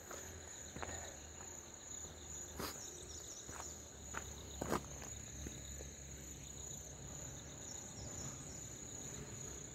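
Crickets trilling steadily and high-pitched in the forest, with a few light footsteps on the dirt track in the first half.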